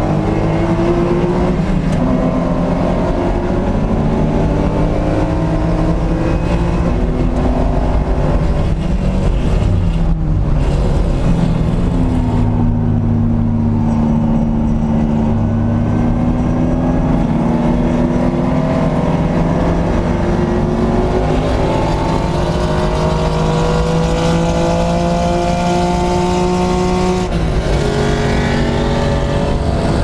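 Porsche 911 SC's air-cooled 3.0-litre flat-six race engine heard from inside the cabin under hard acceleration. The pitch climbs steadily and drops back at each gear change, with a lower-revving stretch around twelve to seventeen seconds in before it pulls hard again.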